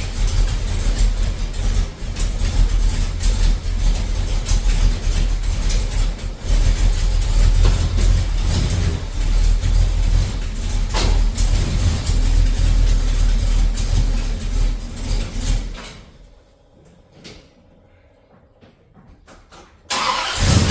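A hot rod's engine running with a heavy low rumble. About sixteen seconds in it drops away to near quiet with a few faint clicks, and loud engine sound returns near the end.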